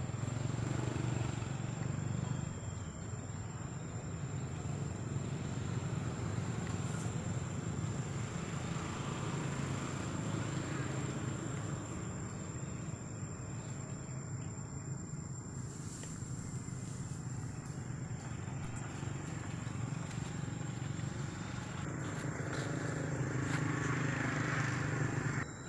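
Steady low hum of a running engine.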